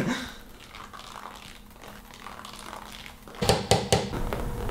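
Quiet room tone, then about three and a half seconds in a cluster of sharp clicks and rustling.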